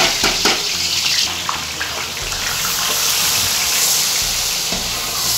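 Sliced onions sizzling in hot oil in a large aluminium cooking pot, a steady hiss that sounds much like running water. A few light clatters near the start as the onions are tipped in from a steel bowl.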